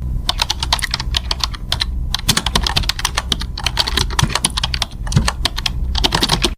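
Rapid, irregular clicking in quick clusters with short pauses, like fast typing on a keyboard, over a low rumble.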